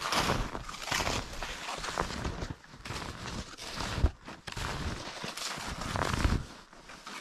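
Snowshoe footsteps crunching through deep snow, about one step a second, with a sharp knock about four seconds in.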